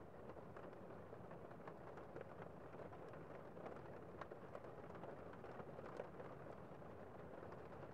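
Gentle rain falling on a window: a soft, steady patter dotted with many small, irregular drop ticks.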